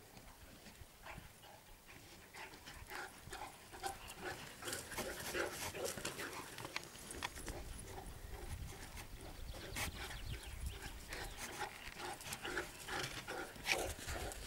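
Dog panting in quick, irregular short breaths during rough play, with a sharp knock near the end.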